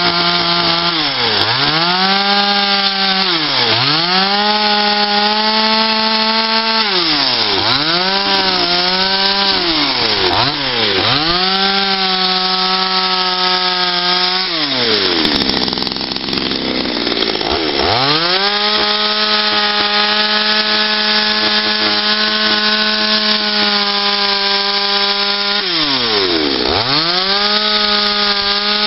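Gasoline chainsaw carving a wooden block: the engine holds a steady high full-throttle whine between several quick drops and climbs in speed as the throttle is released and squeezed again, with a longer rougher lull about halfway through.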